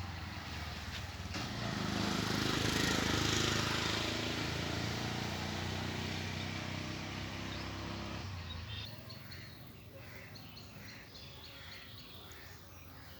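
An engine running steadily, swelling loudest about two to four seconds in and fading away about eight seconds in; faint bird chirps are left afterwards.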